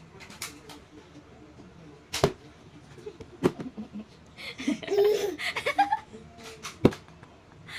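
Sharp plastic knocks as a silicone-and-plastic popsicle mold is banged down on a plastic high-chair tray, several scattered taps with the loudest near the end. In the middle a baby vocalizes for a second or two.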